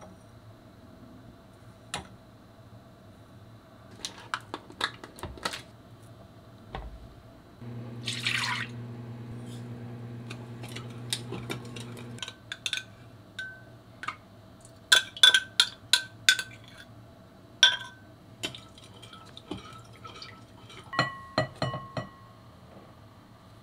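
A metal spoon stirring, scraping and clinking against a glass mixing bowl. The sharpest run of clinks comes about two-thirds of the way through, some of them ringing briefly. Earlier a steady low hum lasts about four seconds, with a short rushing sound at its start.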